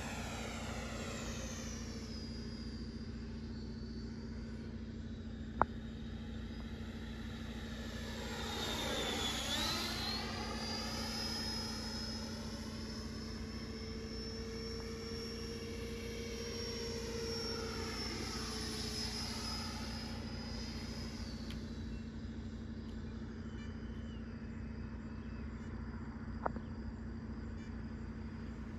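80mm electric ducted-fan RC jet (FMS F-86 Sabre) whining in flight, its high whine sweeping in pitch as it makes passes, with the sharpest sweep about nine seconds in as it goes by close. A steady low hum sits underneath, and there are two sharp clicks, one early and one near the end.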